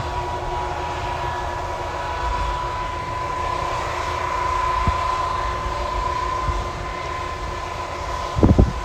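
Large farm tractor's diesel engine running steadily under load while pulling an air drill, with a steady high whine over the engine noise. A few low thumps come near the end.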